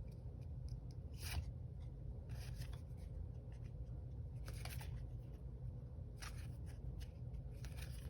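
Pokémon trading cards being slid and flipped through by hand, soft brief swishes about once a second, over a low steady hum.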